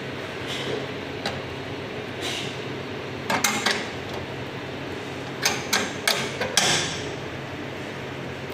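Sharp metallic clicks and knocks, in two clusters about three and a half seconds and five and a half to seven seconds in, as a hand handles a stainless steel fitting on a commercial kitchen range. A steady low hum runs underneath.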